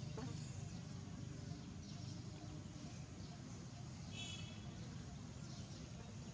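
Faint outdoor background: a steady low rumble, with a short high-pitched chirp about four seconds in.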